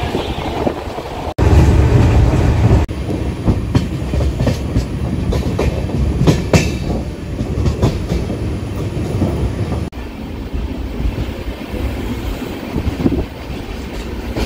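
Passenger train running at speed, heard from inside the coach: a steady low rumble with the wheels clacking over rail joints. The sound changes abruptly about a second and a half in, near three seconds and near ten seconds.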